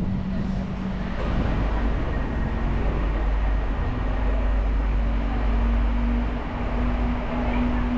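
Vehicle engine running steadily under a broad rumble, with a low drone whose pitch rises a little after about a second.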